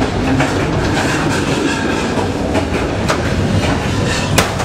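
Passenger train running on the rails, heard from inside the carriage: a steady rumble with irregular clickety-clack knocks from the wheels over the track, and one sharp knock near the end.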